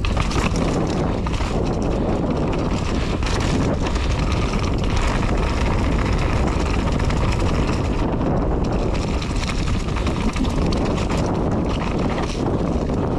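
A mountain bike running fast downhill over rough dirt trail: wind buffeting the microphone over a steady rattle of tyres and frame, with many small knocks.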